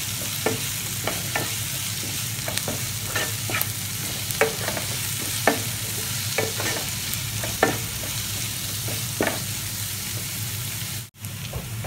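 Sliced onions, shallots, curry leaves and crushed ginger and garlic sizzling in coconut oil in a non-stick pan while being sautéed toward browning, stirred with a wooden spatula that scrapes and taps against the pan at irregular intervals. The sound drops out for a moment near the end.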